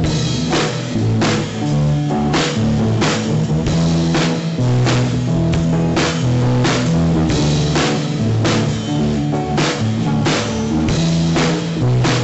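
Rock band recording: a drum kit keeping a steady beat, with a hit a little under twice a second, over guitar and bass.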